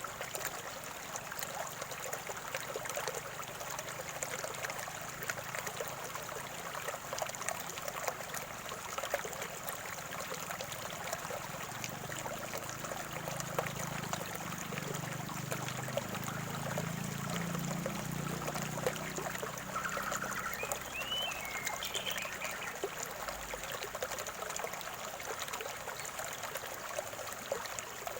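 A small stream of water trickling and gurgling steadily. A few short chirps come in about two-thirds of the way through.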